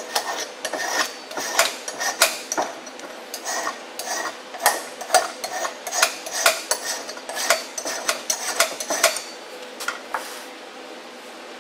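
Hand file scraping back and forth on the steel yoke ear of a Dana 44 front axle shaft, about two strokes a second, deburring the inside edge of the U-joint bore. The filing stops about ten seconds in.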